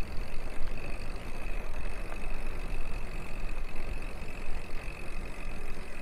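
Wind buffeting the microphone of a moving mountain-bike camera: an uneven low rumble over a steady rush of noise.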